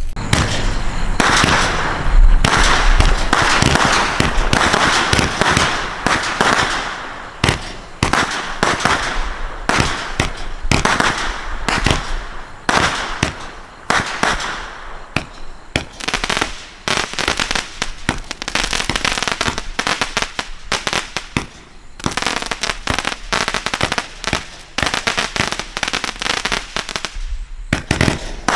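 A 126-shot 500-gram firework cake firing in rapid succession: a continuous barrage of launch thumps and aerial breaks with dense crackling from the crackling tails.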